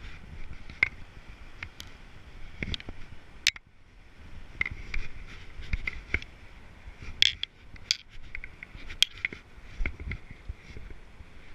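Irregular clicks, taps and short scrapes of hands and a jacket sleeve handling the fishing reel and line right at the microphone, a few of them sharp, over the steady rush of river water at a dam.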